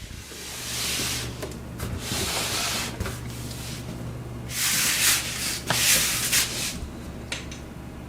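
Handling of a desktop PC case: several stretches of rubbing and scraping against the case, with a few light clicks, over a low steady hum.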